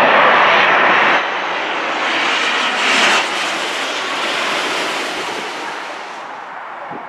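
Jet airliner engines roaring as the plane passes low overhead. The roar drops abruptly about a second in, swells again and drops near three seconds, then fades gradually.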